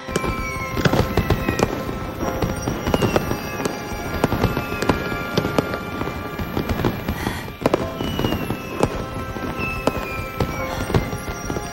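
Fireworks going off: a dense run of bangs and crackles, with several falling whistles, over background music with held chords.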